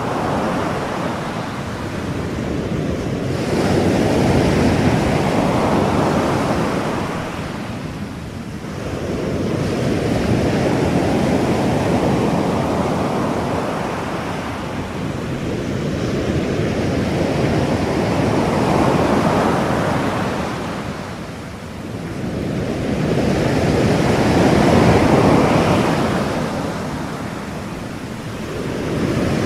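Ocean surf: a rushing wash of waves that swells and recedes in slow surges about every six to seven seconds.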